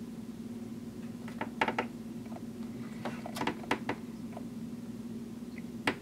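Small sharp clicks and taps of fingers handling and turning a vintage Waterman 754 fountain pen barrel: a few about a second and a half in, a quick run around three to four seconds, and a last sharp one near the end, over a steady low hum.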